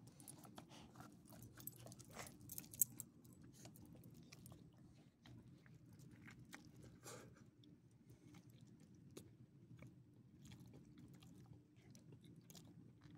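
Faint, irregular crunching and clicking of a small dog chewing a treat, with one sharp click a few seconds in.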